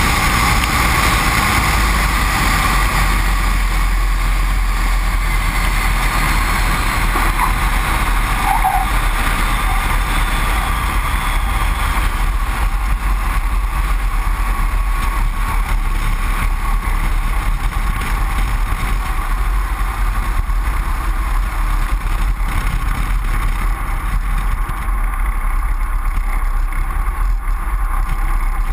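Great Lakes 2T-1A-2 biplane's Lycoming four-cylinder engine and propeller running in a steady rumble, with air rushing past the aircraft-mounted microphone. The rush of air grows weaker as the biplane rolls along the runway and slows.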